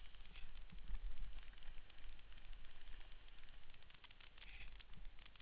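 Footsteps crunching through dry fallen leaves on a forest trail, an irregular crackle, over a low rumble of wind and handling noise on a body-worn microphone.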